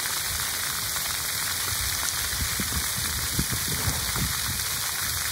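Splash-pad fountain jets spraying and water falling onto wet concrete: a steady, rain-like hiss. A low rumble swells underneath around the middle.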